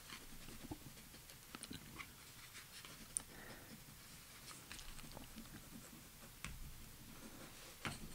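Faint scratching and light ticking of a fine-tipped pen drawing quick, scribbled lines on card.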